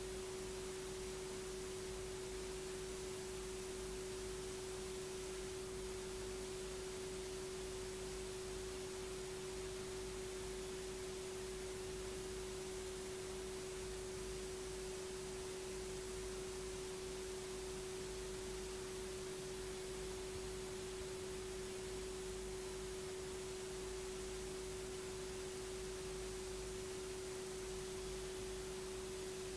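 A steady electronic tone held at one pitch, with a fainter lower tone beneath it, over constant hiss; nothing changes throughout.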